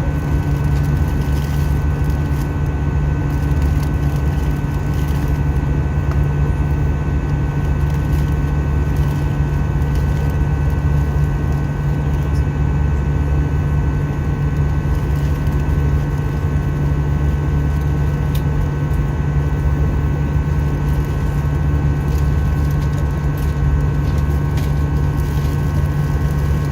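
Steady cabin noise of an Airbus A320 in flight: a continuous low drone of engine hum and rushing air, with a few faint steady whining tones over it.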